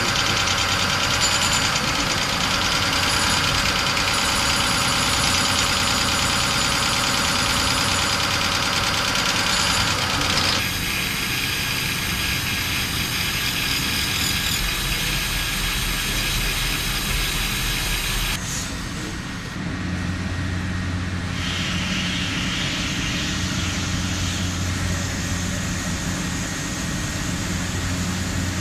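WFL M60 MillTurn machine tool running while machining a crankshaft: a steady mechanical noise with high steady whining tones, whose character changes abruptly about a third of the way in and again about two thirds of the way in.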